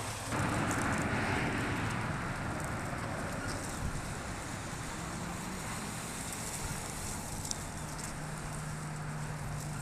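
Outdoor background noise: a rushing noise swells about half a second in and fades over the next few seconds, then a steady low hum sets in. Faint scattered high clicks sound throughout.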